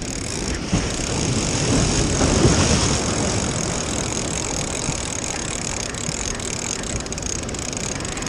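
Ocean surf washing and churning against jetty rocks: a wave surges in about two seconds in, then the wash settles into a steady rush.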